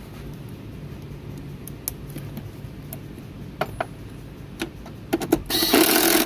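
Scattered clicks and light metallic rattles of hand tools and car parts being handled, over a low rustle. Near the end comes a loud burst of noise for just under a second that cuts off suddenly.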